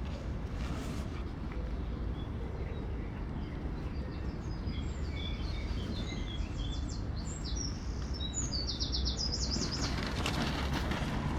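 A songbird singing a quick twittering run of high chirps and short trills over a steady low outdoor rumble, with a brief rustle near the end.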